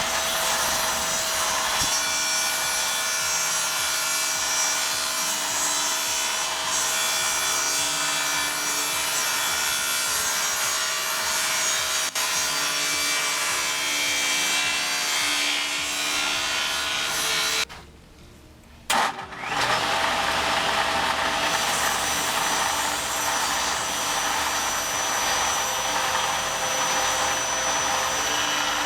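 Table saw with an 80-tooth fine-cut blade running and cutting 3/4-inch birch plywood, a steady whine over loud cutting noise. The sound drops out for about a second roughly two-thirds of the way through, then carries on.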